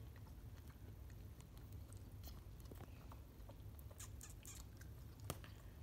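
Faint, scattered small clicks of a koala joey suckling milk from a bottle teat.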